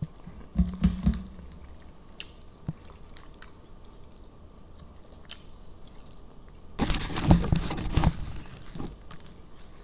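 Eating sounds: chewing and biting on a burger and chicken nuggets, with scattered small clicks and a louder stretch of noise about seven seconds in.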